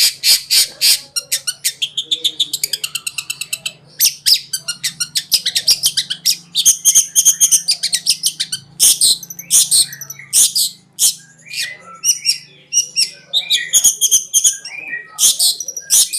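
Long-tailed shrike (cendet) singing a fast, varied song of sharp chattering notes and quick trills, many notes a second with brief gaps, over a faint steady low hum.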